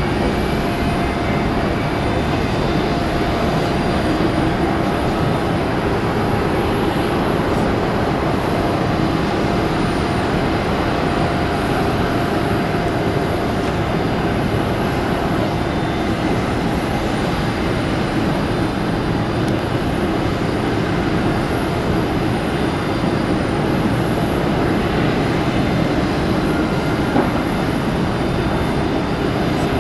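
Jet engines of a Boeing 747 airliner running steadily: a loud, even rush with a faint steady whine underneath.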